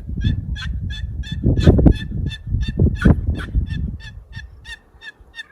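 A handheld turkey call being worked in a long, even run of short yelping notes, about four a second, over low rumbling handling noise.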